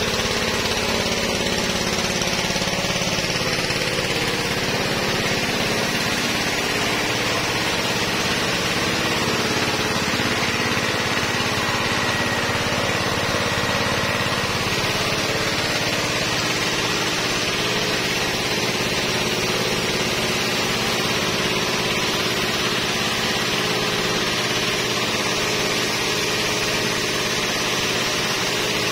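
Pressure washer running steadily: the motor and pump drone at an even pitch under the hiss of the high-pressure spray.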